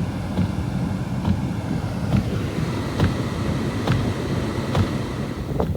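Wind buffeting the microphone as a steady low rumble, with faint short crunches about once a second, like footsteps in snow.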